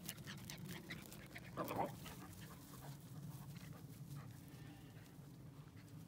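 Dogs playing rough on grass: soft scuffling clicks and one short dog vocalisation about a second and a half in, the loudest sound.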